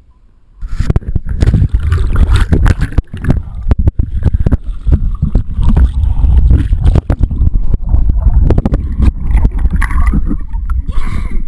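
Water rushing and gurgling against a waterproof action-camera housing as the camera is swept through a swimming pool underwater, with many knocks on the case. It starts abruptly about a second in, with a deep muffled rumble and a little splashing at the surface near the end.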